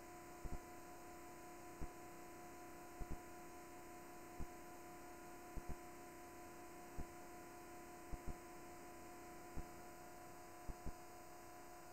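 Steady electrical mains hum in the recording chain, quiet, with faint short low knocks every second or so, some in quick pairs.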